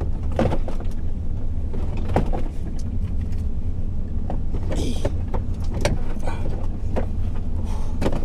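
Truck engine idling steadily underneath, with a series of clunks, knocks and scrapes as a moped frame and wheel are slid into the truck's cargo area.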